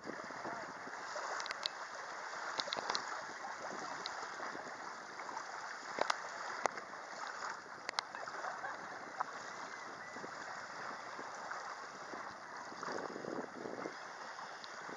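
Choppy lake water lapping at the shoreline, a steady wash with wind, broken by a few sharp clicks in the first half.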